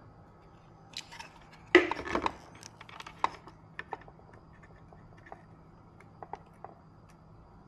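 Small hard objects being handled: a brief clatter of sharp clicks about two seconds in, the loudest part, then scattered light clicks and ticks.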